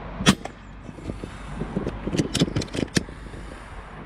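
A single sharp shot from a regulated Daystate .22 pre-charged air rifle about a quarter of a second in. Around two to three seconds in comes a quick run of metallic clicks and knocks from the rifle's sidelever being worked to chamber the next pellet.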